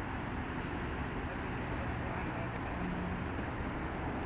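A steady low rumble with a noisy haze over it, unchanging throughout, and a faint low hum briefly about three seconds in.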